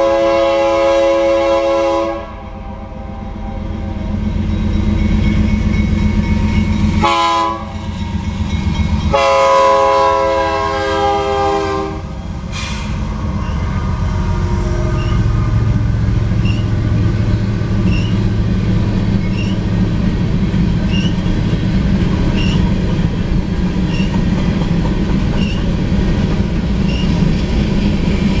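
Air horn of a GE Dash 9-44CW locomotive sounding the grade-crossing signal: a long blast that ends about two seconds in, a short blast, then a final long blast ending about twelve seconds in. The diesel locomotives then pass close by with a deep steady rumble. Empty covered hopper cars follow, rolling past with light clicks about every second and a half.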